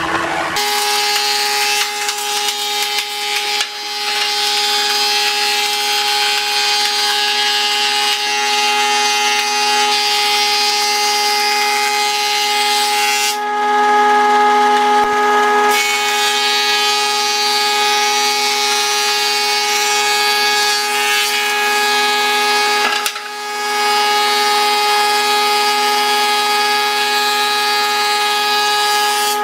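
Combination planer-thicknesser running and planing a pine board: a steady motor and cutter-head whine under the rasping noise of the blades cutting wood, with brief breaks in the cut a little under halfway through and again about three quarters in.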